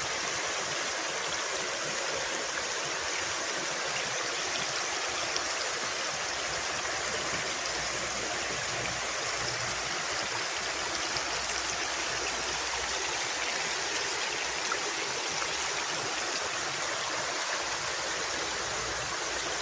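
Stream water rushing over a small cascade, a steady even rush with no breaks.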